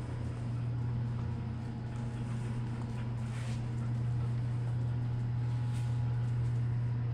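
A steady low hum, with a faint brief rustle about three and a half seconds in.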